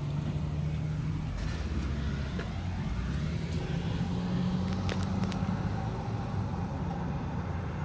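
A motor vehicle's engine running close by: a steady low hum whose pitch drifts slightly, with a few light ticks partway through.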